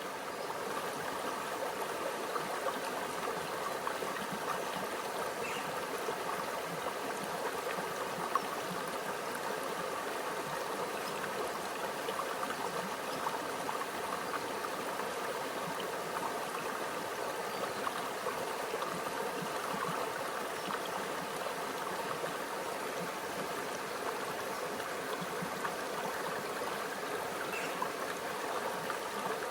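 A small creek flowing steadily over stones, a continuous babbling trickle of water.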